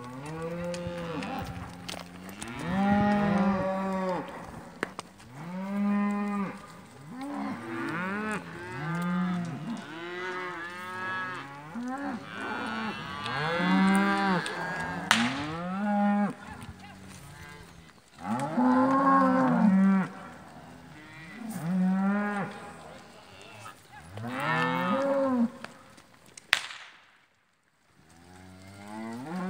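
Herd of Hereford cattle mooing, one long call after another, often overlapping. Two sharp cracks cut through, one about halfway through and a louder one near the end.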